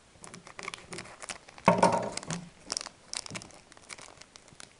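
Foil wrapper of a Pokémon trading-card booster pack crinkling as it is handled in the hands, in short irregular crackles with a louder rustle a little under two seconds in.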